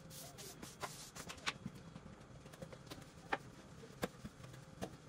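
Faint, irregular taps and knocks, roughly one a second, over a low steady hum, as the floor is swept.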